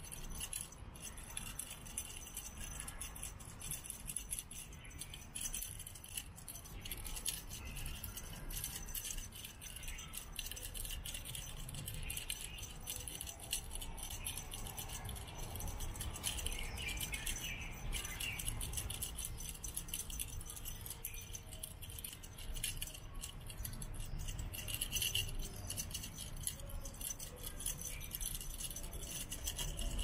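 Irregular rattling and jingling clicks from a feather wand cat toy being shaken and batted by kittens, over a steady high-pitched buzz.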